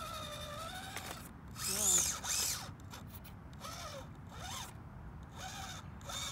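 Furitek Micro Komodo brushless motor in an SCX24 rock crawler whining, its pitch rising and falling with each burst of throttle. The loudest rev comes about two seconds in, followed by several smaller ones.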